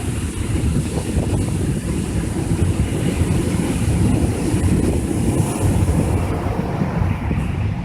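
Strong wind buffeting the microphone in a continuous, flickering low rumble, with ocean surf hissing beneath it.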